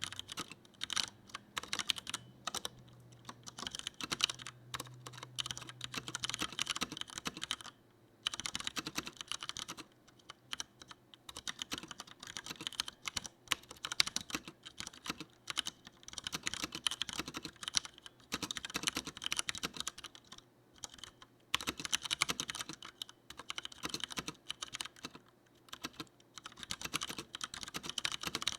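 Fast, steady typing on a Leopold FC900R mechanical keyboard with tactile Cherry MX Brown switches: a dense run of keystrokes broken by short pauses every few seconds.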